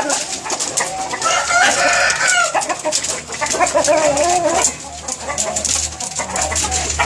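Roosters clucking and calling while they feed, with a drawn-out call about a second in and another around four seconds in, over many short sharp ticks.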